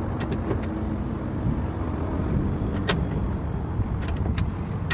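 A few scattered sharp metallic clicks of a wrench turning the adjusting nut on a truck-bed mount, over a steady low rumble of vehicle noise.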